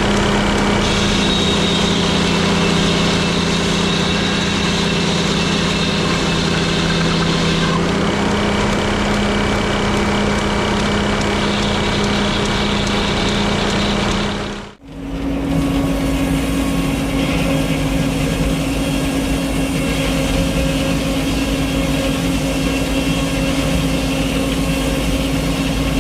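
Engine of a Frick circular sawmill's power unit running steadily. About fifteen seconds in there is an abrupt break, then a similar steady running sound resumes at a slightly higher pitch.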